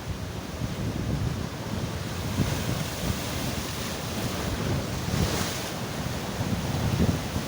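Sea waves breaking and washing on the shore, with wind buffeting the microphone. A louder hissing wash comes in about five seconds in.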